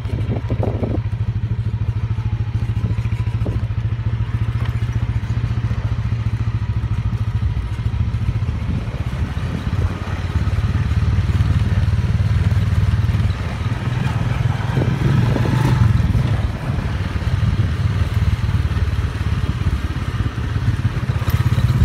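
Small motorcycle engine running steadily while riding along a bumpy dirt road, getting louder about halfway through.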